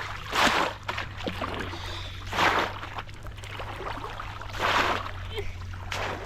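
Water splashing in four short bursts, about two seconds apart, as a bamboo polo fish trap is plunged again and again into shallow water, with small splashes and drips between.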